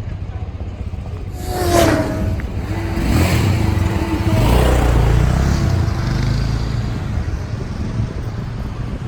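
Paris street traffic. A vehicle passes close by, its pitch dropping slightly, just under two seconds in. Then a louder, heavier low rumble of passing traffic swells for a few seconds and eases off.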